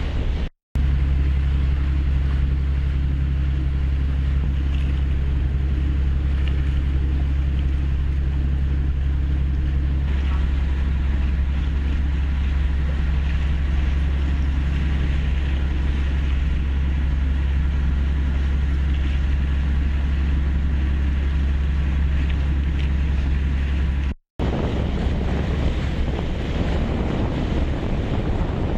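Wind buffeting the microphone over choppy sea water, with a steady low drone under it for most of the stretch. Two short dead silences break it, one near the start and one about three-quarters through; after the second the drone is gone and only the wind and water noise remains.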